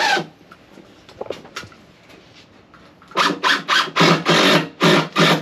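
Squeeze bottle of wood glue spluttering as it is squeezed, air and glue spitting from the nozzle in a quick run of about seven hissing spurts.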